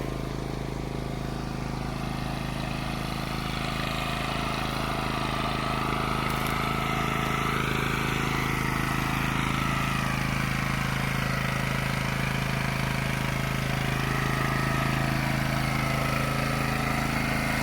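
WEN GN400i inverter generator running steadily under a heavy load from a trailer air conditioner and a battery charger drawing about 1,000 watts. It grows a little louder over the first several seconds, then holds level.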